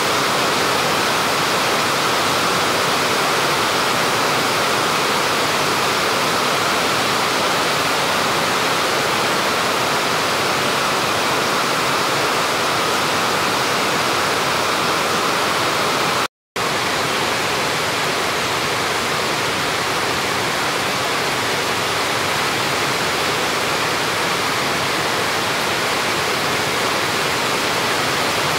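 Heavy tropical rain pouring down in a steady, loud hiss, broken once by a split-second gap about halfway through.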